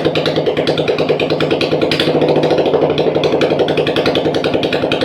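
Royal Enfield Bullet single-cylinder engine idling steadily with an even, quick beat and a fast light ticking on top.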